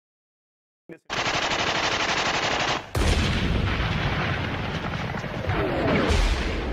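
Battle sound effect of rapid machine-gun fire starting about a second in, changing about three seconds in to heavier, deeper gunfire with a few falling whistles, laid over archival World War I footage.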